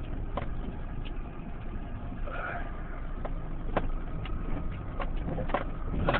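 Honda Element's four-cylinder engine running low as the vehicle drives over a rough sandy dirt trail. Scattered sharp knocks and rattles from the body and suspension over the bumps come more often near the end.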